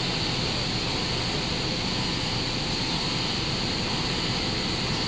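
Steady mechanical hiss and hum of a running cast stretch film production line, with the winder spooling film onto a roll.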